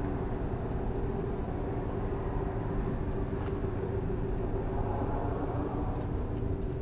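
Steady low rumble of a running vehicle engine, with a steady hum over it.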